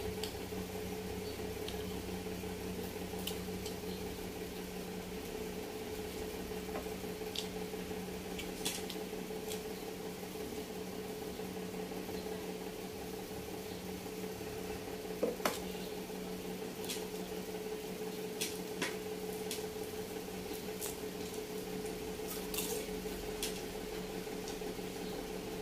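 A steady appliance hum with a constant mid-pitched tone, over which come scattered small clicks and taps of eating by hand and handling a drinking glass; the loudest is a double knock about fifteen seconds in.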